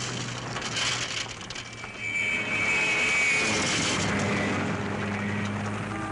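Rally cars' engines running hard as they speed along a loose dirt road. A thin high whine sounds between about two and four seconds in.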